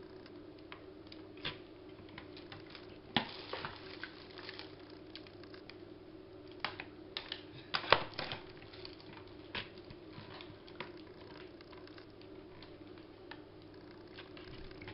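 Scattered light taps and clicks of a rubber stamp and ink pads being handled on a craft desk, with two sharper knocks about three and eight seconds in.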